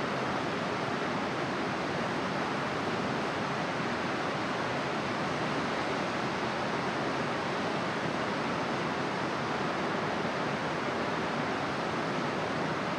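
Steady rushing noise of running water, even in level throughout with no gusts or breaks.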